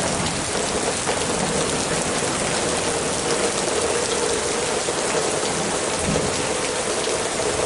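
Heavy rain falling steadily on the ground, with rain also striking the camera.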